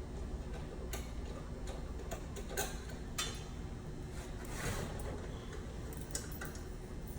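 A handful of separate light clicks and knocks, about five spread irregularly, over a steady low hum.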